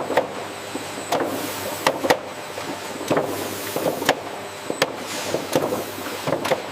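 Irregular sharp knocks and clatter, a dozen or so hits at uneven spacing, over a steady background of noise.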